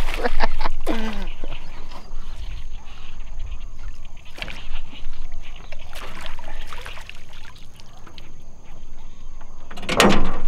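A hooked giant snakehead thrashing and splashing at the surface while it is hauled in beside a wooden boat. Scattered knocks and bumps against the hull mix with the splashing, and there is one louder burst of noise near the end.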